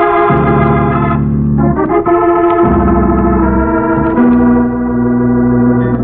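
Radio-drama organ music bridge between scenes: a run of held organ chords, each changing to the next about every second.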